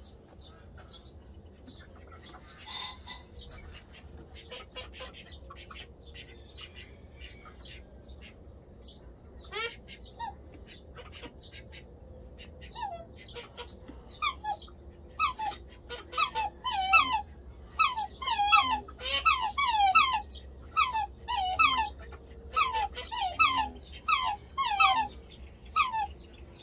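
Black swans calling: repeated short, high bugling calls, sparse and faint at first, then coming thick and loud, about two a second, through the second half, as the pair displays with raised wings beside its eggs.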